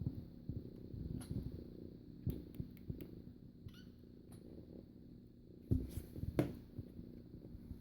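Kitten purring loudly close to the microphone. A few soft thumps come through, the loudest just before six seconds in and again shortly after.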